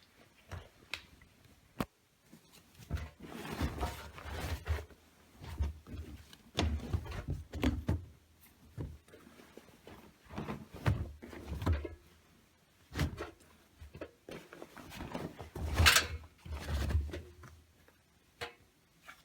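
Miele W1 front-loading washing machine at work near the start of a wash: irregular low thuds and rustling in short bursts of a second or two, with brief pauses and a few sharp clicks between them.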